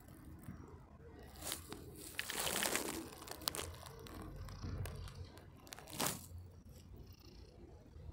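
Rustling, crunching handling noise from a hand rubbing a long-haired tabby cat's fur as it lies on gravel. It comes in several bursts, the loudest about two to three seconds in and another about six seconds in, with a soft low purr underneath.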